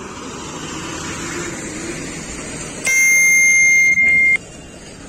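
Bus horn sounding one loud, steady, high note for about a second and a half, with a brief break just before it stops, over the low running noise of bus engines and traffic.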